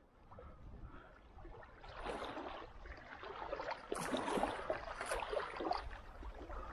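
Small waves lapping against shoreline rocks at the water's edge, the irregular splashing growing louder about two seconds in.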